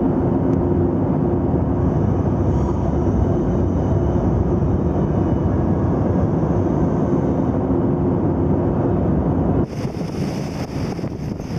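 Steady machinery noise on a ship's deck: a constant hum carrying two steady low tones. About ten seconds in it cuts to gusting wind on the microphone and sea water rushing along the hull, played at double speed.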